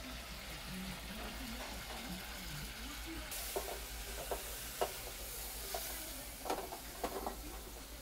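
Salt cod frying in olive oil and garlic, a steady sizzle that brightens about three seconds in. A utensil clicks against the pan several times as it is stirred.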